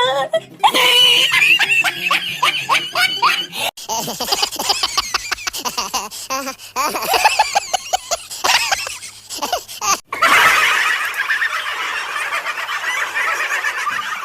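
Human voices laughing and squealing, in three short segments joined by abrupt cuts; the last is a denser, more crowd-like din.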